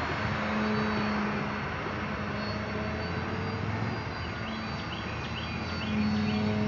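Electric motor and propeller of a small radio-control profile airplane in flight. A steady whine shifts a little in pitch now and then, over a hiss of wind noise.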